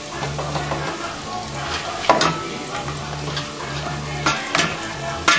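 Food sizzling in oil in a frying pan while a utensil stirs it. Several sharp clacks of the utensil against the pan, the loudest about two seconds in and just before the end.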